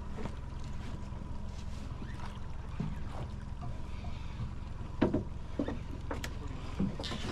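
A boat's engine running steadily with a low hum. A few short knocks and clatters sound over it, the loudest about five seconds in.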